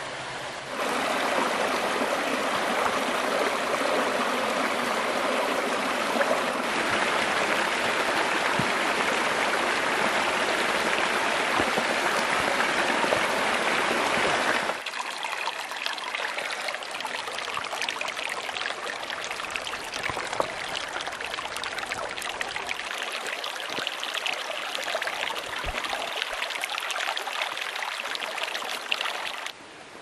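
Stream water running and trickling over rocks and pebbles, a steady rush. About halfway through it switches to a quieter, thinner trickle of shallow water.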